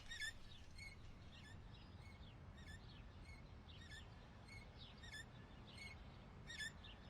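Faint, evenly repeated high chirps, about one every 0.6 seconds, over a low background hum: a quiet night-time ambience of chirping animals.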